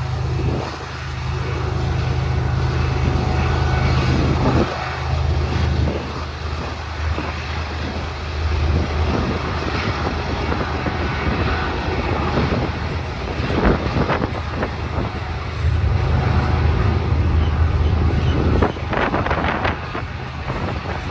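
Diesel freight locomotives rumbling with a steady low engine drone, under heavy wind buffeting the microphone in gusts.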